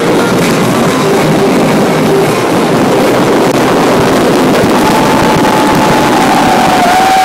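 Big fireworks display crackling and banging continuously in a dense, rough rumble. A long, steady high whistle starts about five seconds in and dips slightly in pitch near the end.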